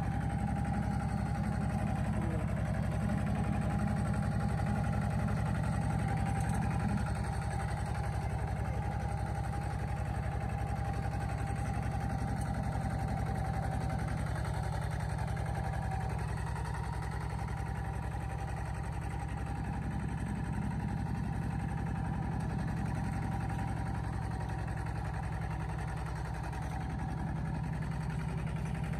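A vehicle engine running steadily, a low, even drone with a faint steady whine above it.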